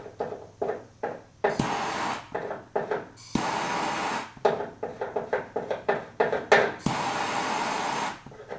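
Gas torch hissing in three bursts of about a second each while it heats lead-tin body solder on a steel trunk panel, with short taps and scrapes between the bursts.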